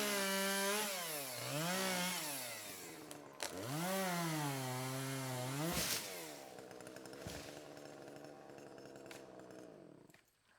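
Chainsaw cutting small trees: the engine's pitch sags and recovers twice as the chain bites into the wood. It then drops to a lower, steadier running note and fades out near the end.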